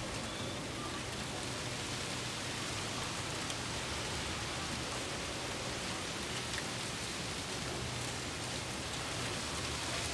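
Steady wind rustling hanging laundry and palm fronds: an even hiss with a few faint ticks.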